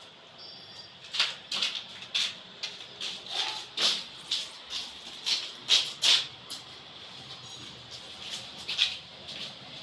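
Footsteps crunching and scuffing on a gritty, sand-strewn concrete floor, about two or three steps a second. They start about a second in, thin out after about six seconds and pick up again near the end.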